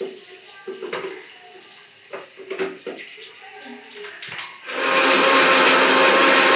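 Light knocks and clinks of ingredients and a jar being handled, then an electric mixer grinder starts about two-thirds of the way in and runs loud and steady, grinding onion, ginger, garlic and green chilli into a paste.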